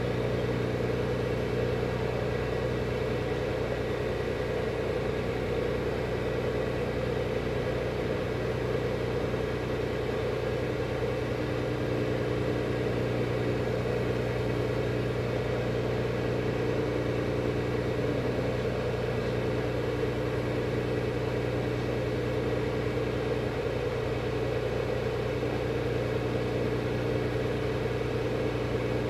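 Single-engine light aircraft's piston engine and propeller idling steadily, heard close up from the nose cowling.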